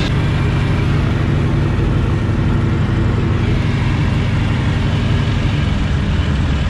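Harvard trainer's Pratt & Whitney R-1340 Wasp nine-cylinder radial engine and propeller running steadily, heard from inside the cockpit as the aircraft rolls along the runway.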